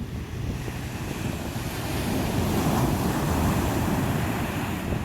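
Sea waves washing in, one surge swelling and breaking about two seconds in, with wind buffeting the microphone.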